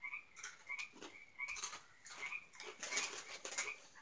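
Crunchy corn nuts being chewed: a quick, irregular run of crisp crunches, roughly three a second.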